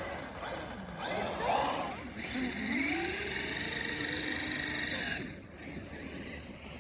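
Battery-powered electric RC car motor whining as the car runs on ice. The pitch rises as it speeds up, then cuts off suddenly about five seconds in.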